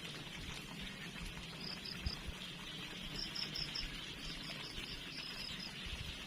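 Insects, such as crickets, chirping steadily in the background, with a few short runs of quick, high chirps.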